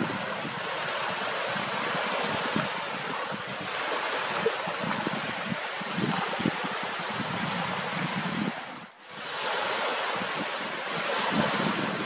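Wind buffeting the microphone over water lapping at a reservoir shore, a steady rush with irregular low gusts. The sound briefly drops away about nine seconds in.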